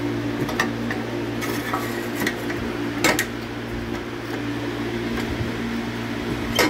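Scattered metallic clinks and taps of hand tools working on a motorcycle, the sharpest about three seconds in and another near the end, over a steady background hum.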